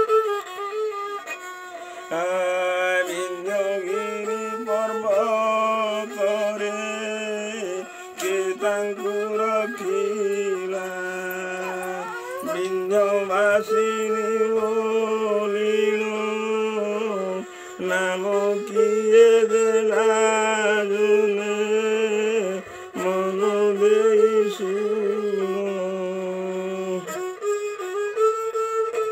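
A bowed folk fiddle with a round resonator, played with a stick bow. It plays a wavering, sliding folk melody over a steady low note, with brief breaks every few seconds.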